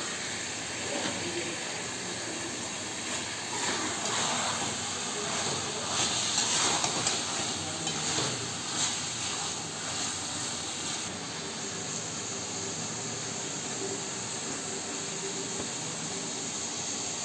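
Potato and mince curry sizzling in a metal karahi on a gas stove, stirred with a metal ladle that scrapes and knocks against the pot. The stirring is loudest in the middle stretch.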